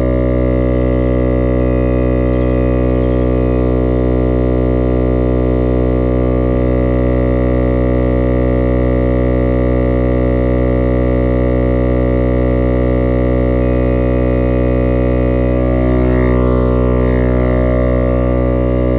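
Viair 88P 12-volt portable air compressor running steadily with an even motor hum, inflating a tire past 25 psi.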